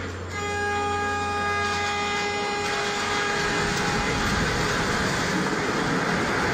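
A warning horn holding one long steady blast, stopping about two and a half seconds in, followed by a deep rumble that swells and keeps going as the damaged six-storey building comes down in demolition.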